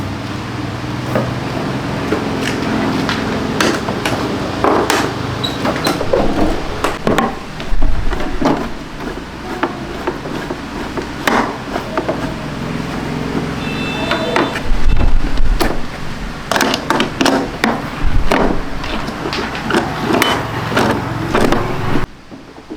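Workshop clatter of tools and scooter parts being handled: irregular knocks and clicks over a steady low hum, with the knocks coming thickest in the second half.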